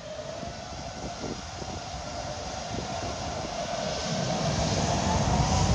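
Business jet's turbofan engines whining as the jet taxis past, growing steadily louder. The whine rises slightly in pitch, and a low rumble comes in about four seconds in.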